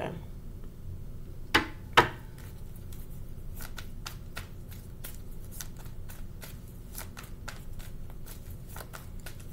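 A deck of tarot cards being handled and shuffled: two sharp taps about a second and a half in, then a run of quick, light card flicks.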